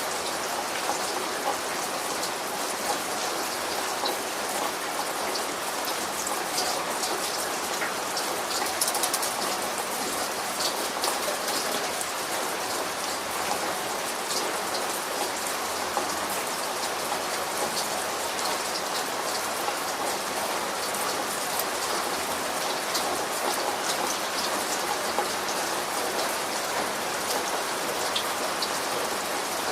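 Steady rain falling, with many separate drops ticking sharply against a hard surface.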